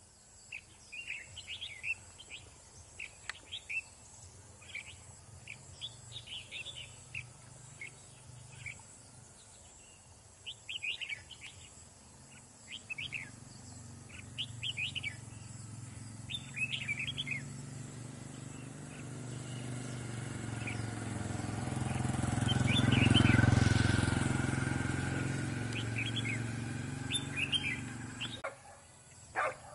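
Red-whiskered bulbul singing in short, bright chirping phrases that come in bursts. In the last third a passing motor vehicle swells up, becomes the loudest sound, and fades away.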